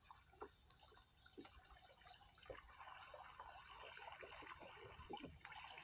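Faint water trickling and lapping around a fishing kayak, with small scattered ticks, getting a little louder about halfway through.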